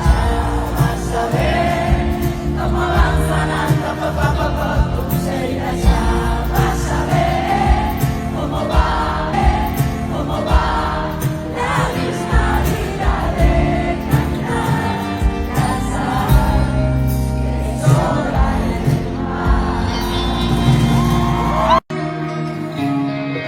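A pop song with a lead vocal over a steady beat. Near the end it cuts out for an instant and a different section of music starts.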